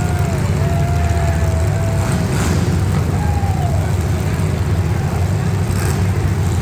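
Street-stock demolition derby cars' engines running loud together, with pitches rising and falling as they rev.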